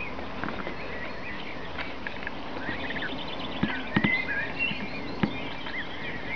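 Goslings peeping as the flock walks off: many short, high whistled calls that rise and fall, overlapping one another. A few sudden knocks come about halfway through and again a second later.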